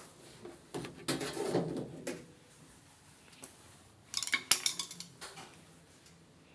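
Hard objects being handled: a scraping rustle about a second in, then a quick run of metallic clinks and clatters about four seconds in.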